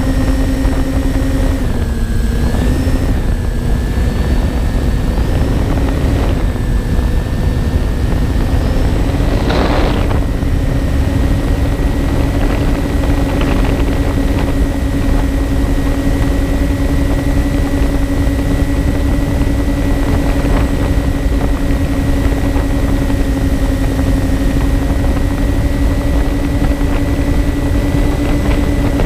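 Twin electric motors and propellers of a MyTwinDream FPV plane in flight, droning steadily over heavy wind rush on the onboard microphone. The pitch dips briefly about two seconds in, and a short gust of rushing noise comes about ten seconds in.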